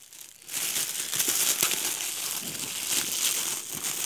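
Shiny red metallic gift wrap crinkling and crackling as it is pulled open by hand, starting about half a second in and going on busily from then.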